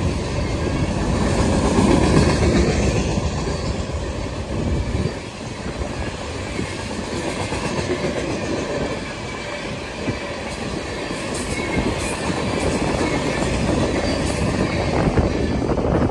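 Loaded open-top coal hopper cars rolling past on steel wheels and rail, a continuous dense rumble, until the end of the train goes by near the end.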